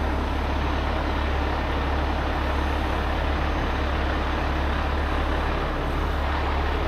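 Diesel engine of a 75-ton rotator tow truck running steadily with a deep, even rumble.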